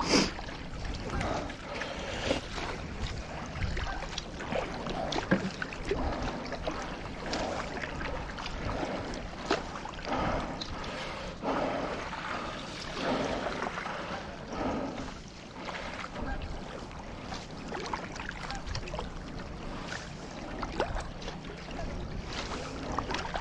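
Paddle strokes in the water from a stand-up paddle board, recurring in a steady rhythm with splashing and water noise, picked up by a camera held on a bite mount in the paddler's mouth.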